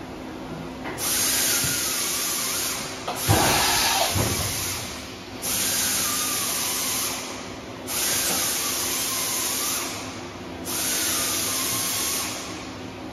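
Five bursts of hissing, each about a second and a half long and roughly two and a half seconds apart, with a faint wavering whistle inside each. A brief knock comes about three seconds in.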